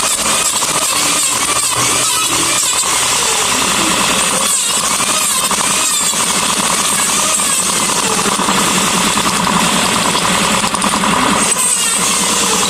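A handheld power tool running steadily.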